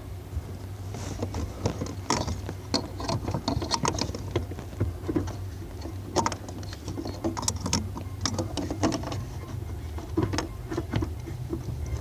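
Irregular light clicks, taps and rattles of hands working at a 2013 Hyundai Elantra's accelerator pedal assembly mounting, over a steady low hum.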